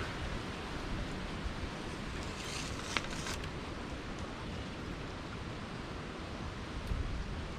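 Steady wind rumble and hiss on the microphone outdoors, with a few brief rustles and a sharp click about three seconds in.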